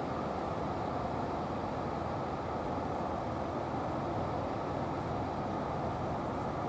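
Steady, even background noise with no distinct events, mostly low and mid in pitch.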